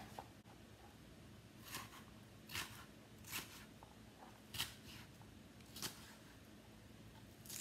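Chef's knife dicing bell pepper on a plastic cutting board: about six soft, separate chops at an uneven pace.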